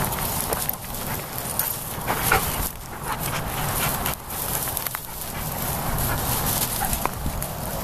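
Dogs running and playing through dry grass and patchy snow: rustling and scattered short footfalls over a steady low rumble.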